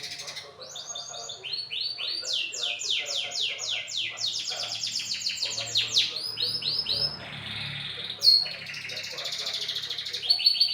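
Domestic canary singing in full song: long runs of fast, high trills made of repeated sweeping notes, switching to a new trill every second or so.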